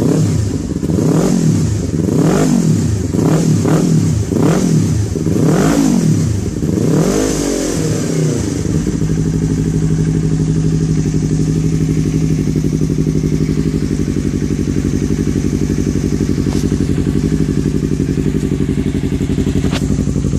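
Yamaha YZF-R15's single-cylinder engine revved in a quick run of about seven throttle blips, each rising and falling, then settling about eight seconds in to a steady idle as it warms up.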